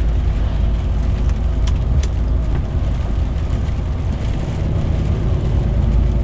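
DAF truck heard from inside the cab while driving on a wet road: a steady low engine and tyre drone, with a few faint sharp ticks about two seconds in.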